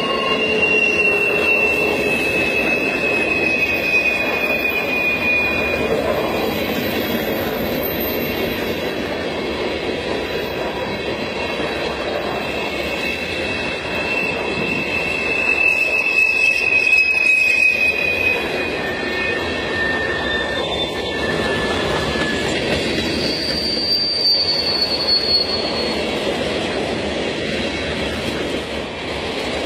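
Freight train of covered hopper cars rolling past close by: a steady rumble and clatter of wheels on rail, with thin, high metal squeals from the wheels that come and go several times.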